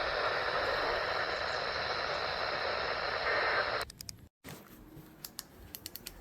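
Weather radio receiver hissing with static from a weak, poorly received signal, then cutting off abruptly about four seconds in. A few faint clicks follow.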